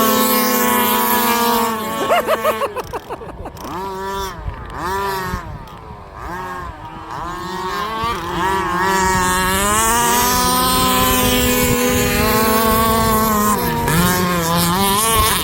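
Large-scale RC cars' 30.5cc and 38cc two-stroke petrol engines running at high revs, the pitch sweeping up and down several times as the throttle is worked, then holding high and fairly steady before a short dip near the end.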